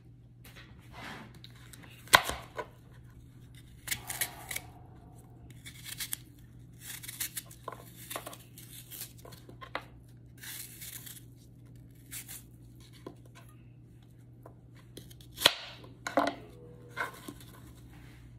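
Kitchen knife slicing and paring crisp, sour green apples in the hand: irregular crunching cuts and scrapes through the fruit, with a few sharp clicks as pieces or the blade touch the plastic cutting board.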